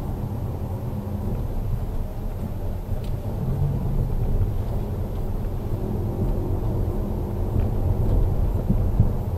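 Car driving on a road, heard from inside the cabin: a steady low rumble of engine and tyre noise.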